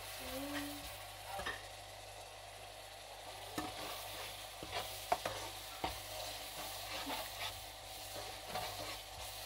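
Curry masala sizzling in a nonstick wok while a metal slotted spatula stirs it, with scattered clicks and scrapes of the spatula against the pan.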